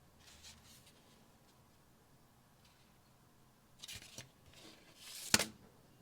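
Packaging of a 7-inch vinyl single being handled during unboxing: a faint rustle near the start, a short crackly scrape about four seconds in, and a sharp click just after five seconds.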